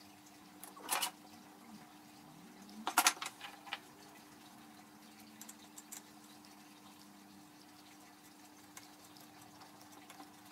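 Light metal clicks and clinks of small parts and tools being handled at a mini lathe's chuck and headstock: a short burst about a second in, a busier cluster about three seconds in, then a few faint ticks. A steady low hum runs underneath.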